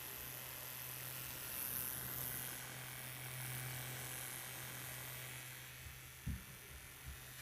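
Small handheld fan's motor buzzing steadily, with one soft knock near the end.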